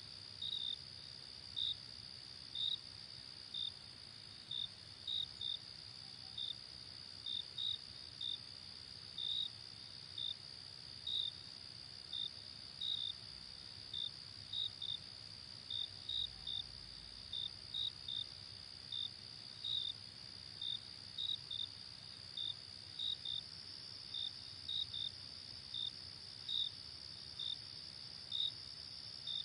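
Insects chirping: a continuous high trill with short, louder chirps repeating irregularly over it, about one or two a second.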